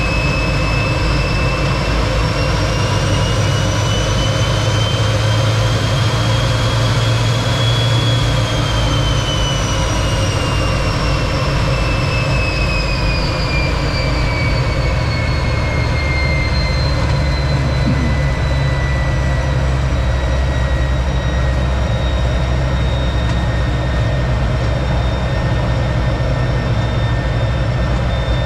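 T-33 jet trainer's single Allison J33 turbojet running with a steady roar. Its turbine whine rises over the first several seconds, then falls and settles at a lower pitch as the engine speed changes.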